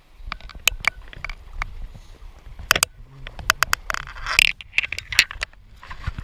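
Irregular sharp clicks of the angler's pincers bouncing off the GoPro case as he moves. From about four seconds in, wading boots splash through shallow water.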